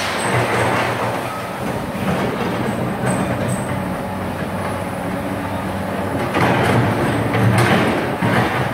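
Komatsu PC200 hydraulic excavator's diesel engine and hydraulics running steadily as it works its boom and bucket in dirt, growing louder about six seconds in.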